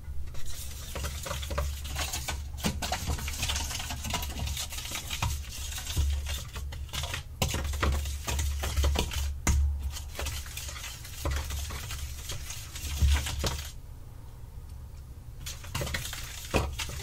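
Metal spoon stirring a thick sauce in a stainless steel mixing bowl: quick, repeated scrapes and clinks of spoon on steel, pausing briefly about three-quarters of the way through. A low rumble runs underneath.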